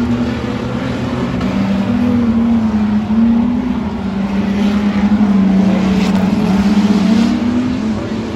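Engines of street stock race cars running around a dirt speedway oval: a loud, steady, mixed engine drone whose pitch wavers up and down as the cars lap.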